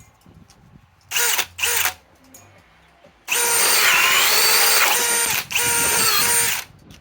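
Milwaukee M18 Fuel Gen 4 cordless drill driving a 2-inch Speed Demon bore bit into wood. It gives two short bursts, then runs hard for about two seconds, pauses briefly, and runs for about another second, with a steady motor whine over the cutting noise.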